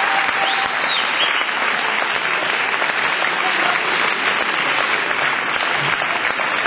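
Audience applauding steadily, with a short rising-and-falling whistle about half a second in.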